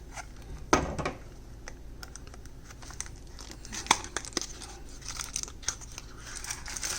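Knife packaging being opened by hand: crinkling and tearing with scattered clicks and taps, the loudest a knock just under a second in.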